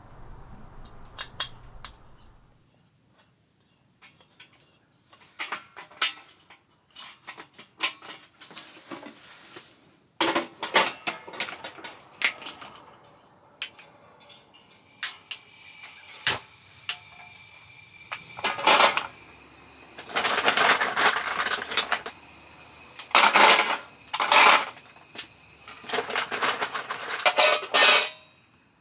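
Dishes and cooking utensils clinking and clattering as they are handled, with several longer noisy stretches of handling in the second half.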